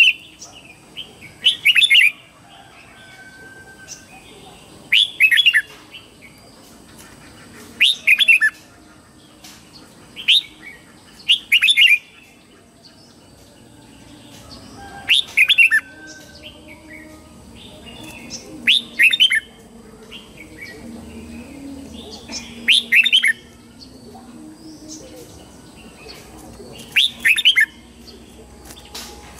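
Red-whiskered bulbul singing its morning song: short, bright warbled phrases, about ten of them, repeated every few seconds, some in close pairs.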